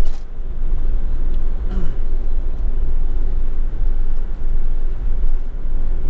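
Steady low rumble of a camping car driving at road speed on a paved highway: engine and tyre road noise heard from inside the cab.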